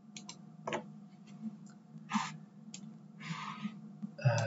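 A few scattered clicks from a computer mouse and keyboard over a low, steady hum, with a short rustle about three seconds in.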